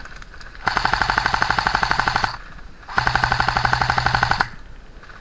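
Airsoft rifle firing two bursts on full auto, each about a second and a half of rapid, evenly spaced shots at well over ten a second.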